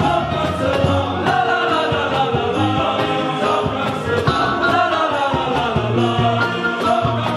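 Male choir singing in unison and parts, accompanied by guitars and violins.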